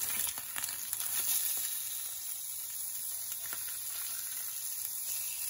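Mackerel fillets sizzling steadily in hot oil in a frying pan, with a few short scrapes and taps of a metal slotted spatula against the pan as the fillets are turned over.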